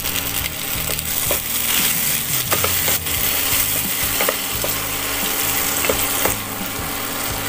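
Chopped onion, capsicum and fresh tomato pieces sizzling steadily in hot oil in a non-stick wok, with a wooden spatula stirring and clicking against the pan.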